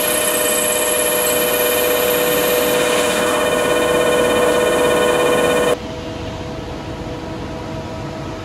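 CNC lathe machining a bore under flood coolant: a steady hiss of spraying coolant with a steady mechanical whine of several tones. About six seconds in it cuts off sharply to a quieter, duller hiss.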